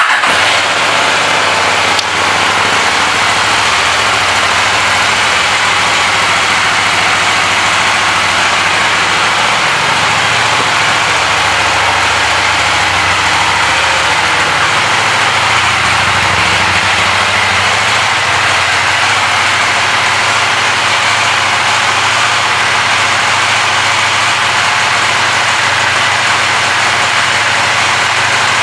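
KTM 790 Duke's 799 cc parallel-twin engine idling steadily in neutral, just after being started.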